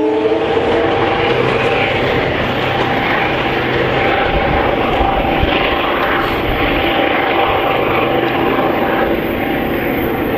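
Diesel locomotive of a departing push-pull commuter train pulling under power: a loud, steady engine drone with a few held tones, mixed with the rumble of the coaches' wheels on the rails. It fades slightly near the end.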